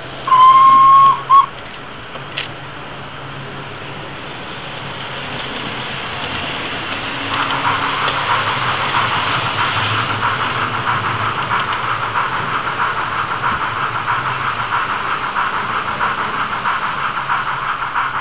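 Sound-fitted OO gauge model steam locomotive playing its recorded sounds through its small speaker: a short steam whistle blast with a quick second toot, then steam hiss building into a loud, pulsing chuff from about seven seconds in.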